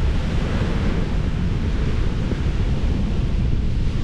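Steady wind buffeting the microphone over the wash of rough sea surf.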